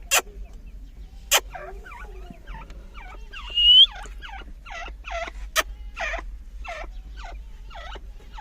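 Teetar (partridges) calling in a series of short repeated notes, about one to two a second, with one louder rising whistled note about three and a half seconds in. Three sharp clicks come through: one right at the start, one just after a second in, and one at about five and a half seconds.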